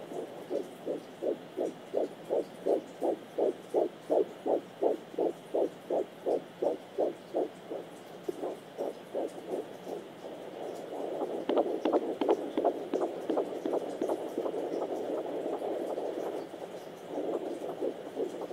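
Fetal heartbeat picked up by a Sonoline B handheld fetal Doppler: a fast, even whooshing pulse at about three beats a second. After about eight seconds the beat weakens and gives way to a louder hiss with scratchy crackles, and the pulse returns faintly near the end.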